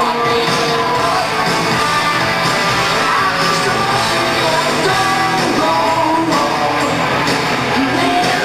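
Live hard rock band playing loud and steadily: electric guitars, bass and a full drum kit, with sung vocals.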